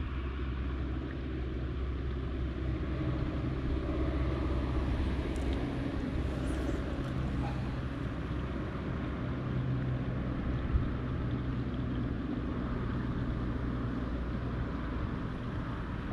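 Steady low drone of a distant engine, swelling over the first few seconds and then holding, with one sharp click about eleven seconds in.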